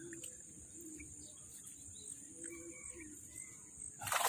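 Outdoor insect chorus at dusk: a steady high buzz pulsing a couple of times a second, with faint bird chirps over it. A brief burst of noise comes near the end.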